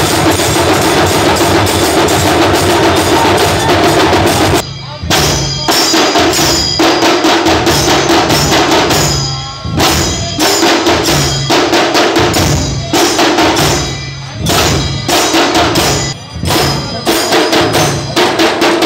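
Dhol-tasha drumming: large barrel drums beaten with sticks together with small sharp-sounding tasha drums, playing a loud, fast, steady rhythm. The beat drops out briefly several times, first about five seconds in, and picks up again each time.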